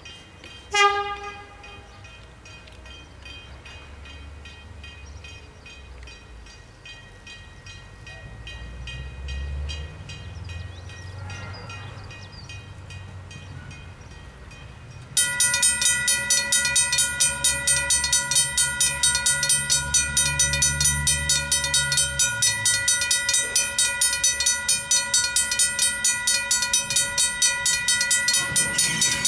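A short, loud toot from the approaching train about a second in, then a low rumble as it draws nearer. About fifteen seconds in, the level-crossing alarm bells start ringing rapidly and loudly, about four strokes a second, and keep on.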